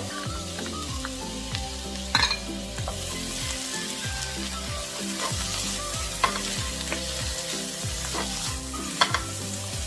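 Green beans sizzling in a hot oiled frying pan as they are stir-fried with a wooden spoon, the sauce just poured in. A couple of sharp knocks stand out, about two seconds in and near the end.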